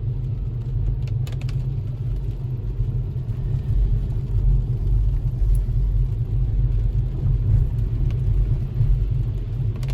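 Steady low rumble of a vehicle driving along a road, with a few faint ticks.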